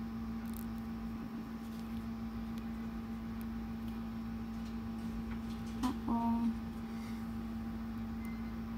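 Steady low electrical hum with a few faint ticks, and a brief pitched sound about six seconds in.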